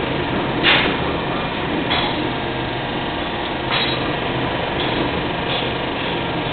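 Spring coiling machine forming a heavy coil spring from 16 mm wire: a steady mechanical running noise broken by a few sharp metallic clanks, the loudest a little under a second in.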